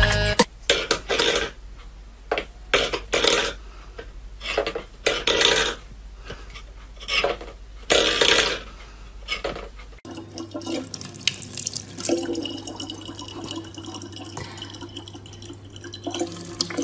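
A metal bowl clattering and scraping on a wooden floor in short bursts as a cat paws at it. About ten seconds in, this gives way to tap water running in a thin steady stream into a plastic bottle, over a low hum.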